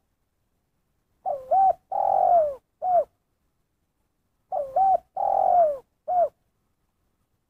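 Spotted dove cooing, twice, about three seconds apart. Each phrase is two quick notes, a long coo that falls at its end, then one short closing 'kuk', the one-kuk ending that keepers call 'kuk satu'.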